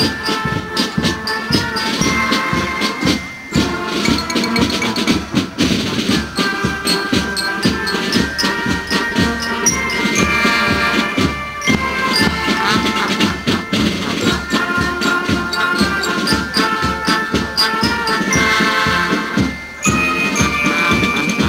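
Marching brass band playing a march: brass instruments carry the tune over a steady, regular drum beat.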